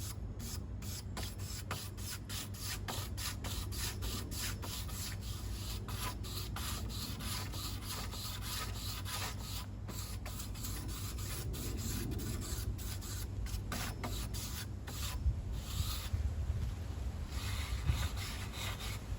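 Wire brush scrubbing a charred larch board in repeated strokes, scouring off the loose burnt top layer of the shou sugi ban char.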